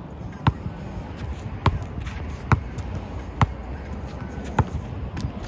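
Basketball dribbled on an outdoor asphalt court: five sharp bounces, about one a second.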